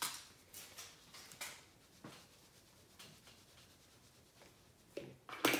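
Fine glitter pouring from small plastic bottles into glue, a faint hissing patter. Near the end come two sharp knocks of a plastic bottle.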